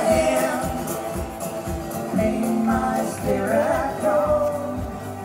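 A song with a voice singing over a steady drum beat.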